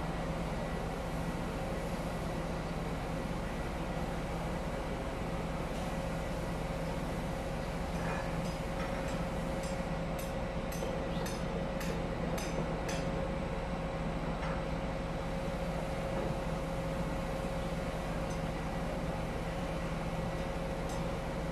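Steady machinery drone with a constant hum and a held tone, and a quick run of light clicks about halfway through.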